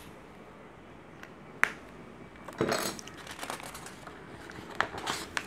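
Paper sheets on a clipboard being handled and turned over: a sharp click, then a rustle of paper, then a few more clicks and rustles.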